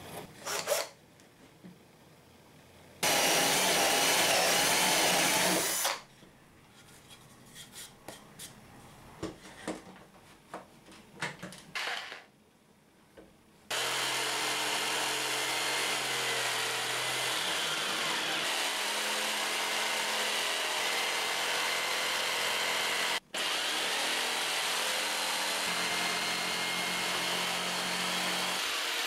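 A jigsaw cuts a circular hole in a pine board, running steadily with one brief stop partway through. Earlier, a power tool runs for about three seconds, followed by scattered clicks and knocks.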